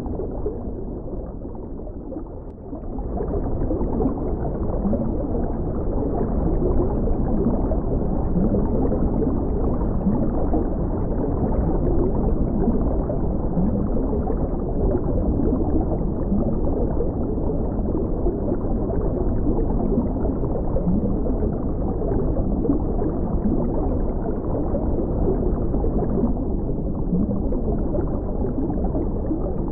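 Muffled underwater ambience: a steady low rumble and gurgle of water, quieter for the first few seconds and then constant.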